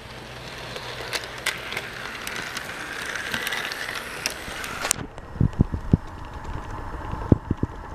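HO-scale model of ET&WNC No. 12 steam locomotive running past with its train: a mechanical whirr of the motor and gears, with wheels clicking over the track joints, growing louder as it approaches. About five seconds in, the sound changes to a string of heavier, lower clacks as the locomotive and tender pass close by.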